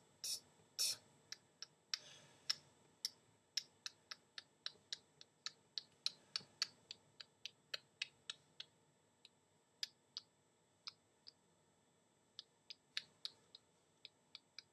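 A rapid, irregular run of short, sharp clicks made close to the microphone, a few a second. They thin out about nine seconds in and pick up again near the end.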